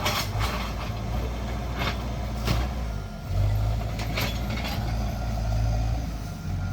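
Heavy diesel earthmoving machine working, its engine a steady low drone that dips briefly about three seconds in, with several sharp knocks over it.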